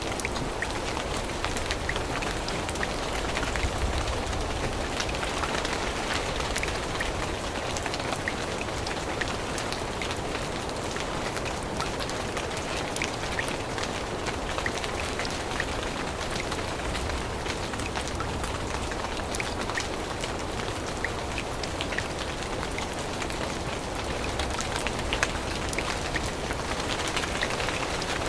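Steady rain falling, with many individual drops ticking sharply over the even hiss.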